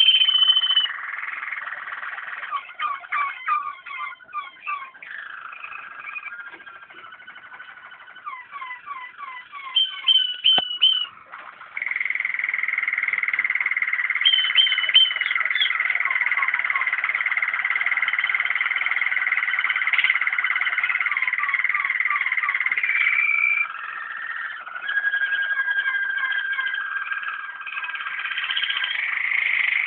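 Waterslager (Malinois) song canaries singing: runs of quick falling notes, then a long steady held note from about twelve seconds in that lasts some eleven seconds, followed by a lower held note.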